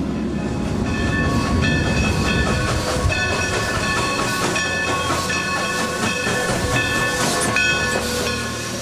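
A train running on rails: a dense low rumble with hiss and several high, steady squealing tones that start and stop over and over.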